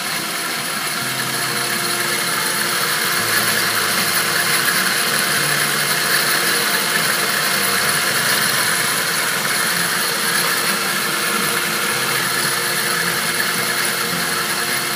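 Three repurposed cordless drill motors running together on a homemade lapidary sphere grinder, turning their chucks and cups. The result is a steady mechanical whir of several motors at once, with a constant whine.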